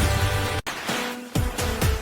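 Electronic background music with a steady kick-drum beat. The sound cuts out for an instant about a third of the way in, the beat and bass drop away for a moment, and then they come back in.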